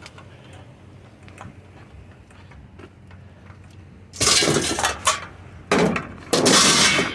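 Scrap metal clattering and crashing as pieces are tossed onto a pile, in three loud bursts: one about four seconds in and two more close together about six seconds in.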